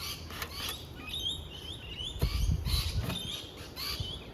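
Small birds chirping repeatedly in short, quick rising calls, with a low rumble for about a second near the middle.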